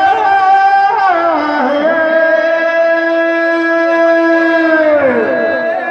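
Amplified male voice singing a Teja gayan, the Rajasthani folk song of the Tejaji legend: after a few moving phrases it holds one long note for about three seconds, then slides down near the end.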